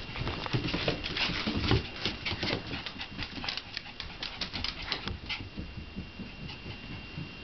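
Shiba Inu puppies' claws clicking on a hardwood floor as they scamper and scuffle in play: a rapid, uneven patter of clicks, thickest in the first five seconds and thinning out after.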